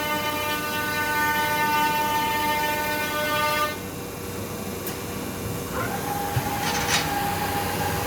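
Machine whine from a WEEKE BHC 350 CNC machining centre: a steady whine with many overtones that cuts off suddenly a little past a third of the way in. About two seconds later a higher whine rises in and holds steady, with a short hiss partway through, and its pitch falls away at the very end.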